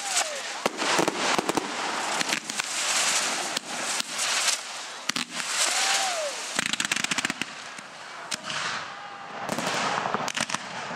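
Aerial fireworks going off: a continuous dense crackling with many sharp bangs scattered through it.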